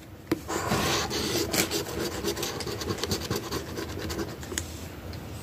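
Scratch-off lottery ticket's coating being scraped away in rapid back-and-forth strokes, starting just after the beginning and stopping about a second before the end.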